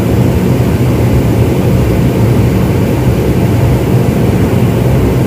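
A boat's engine running steadily under way, heard from aboard as a loud, even low drone.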